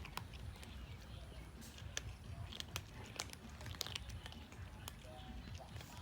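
Cats chewing and crunching food, making irregular sharp clicks several times a second over a steady low background rumble.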